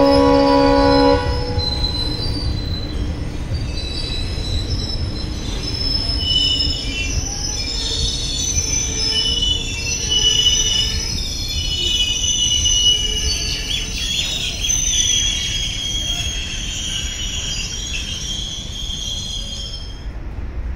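A train horn sounds and stops about a second in. Then the coaches of a passing Indian Railways passenger train rumble by on the track, with high-pitched wheel squeal coming and going, several squealing tones at once.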